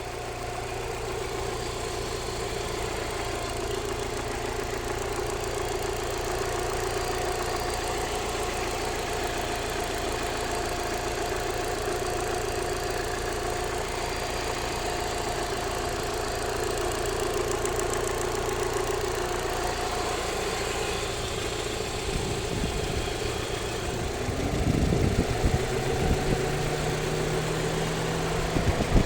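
Alfa Romeo 156's 1.6 Twin Spark four-cylinder engine idling with a ticking from the upper engine bay, its source unknown to the owner. About 24 seconds in the sound grows louder and a steady low hum joins it.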